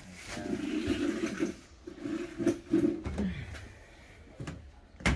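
Something scraped across a hard surface in several strokes during the first three seconds, then a single sharp knock near the end.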